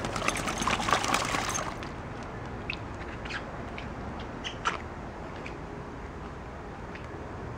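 Water splashing and sloshing as dogs wade in a shallow inflatable pool, busiest for the first couple of seconds, then a few scattered small splashes and drips over a low steady hum.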